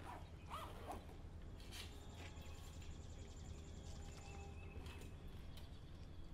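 Faint rustling and handling of a nylon backpack as it is fastened and lifted by its top handle, with a few sharp scuffs in the first couple of seconds and a run of fine ticking after, over a low steady hum.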